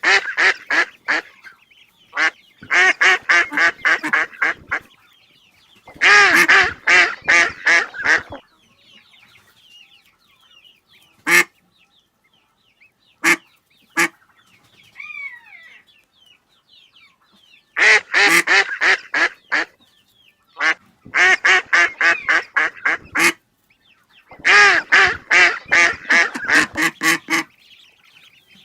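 Ducks quacking in loud runs of several quick quacks each, about six bouts with a couple of single quacks between them. Faint higher chirps sound in the quieter stretch between runs.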